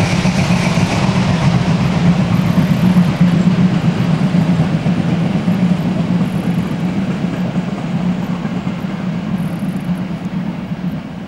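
Passenger train rolling past with a steady rumble that slowly fades as the last coaches move away.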